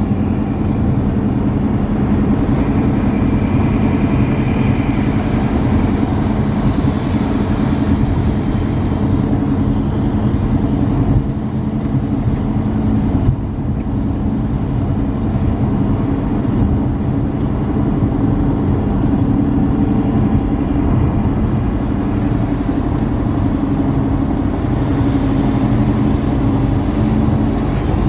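Steady road noise inside a moving car on a wet, slushy highway: a low engine hum under the hiss of tyres on the wet road, dipping briefly about halfway through.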